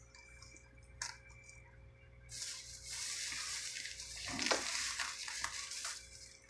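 A plastic fish bag crinkling and rustling for several seconds from about two seconds in, as it is handled and set to float in an aquarium. There is a single light tap about a second in.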